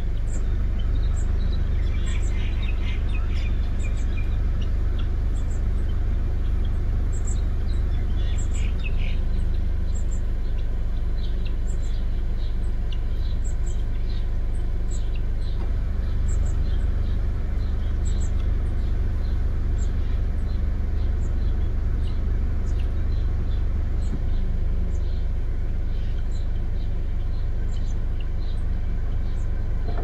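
Steady low rumble of an idling car engine, with many short, high bird chirps throughout and two busier spells of calling about two and eight seconds in.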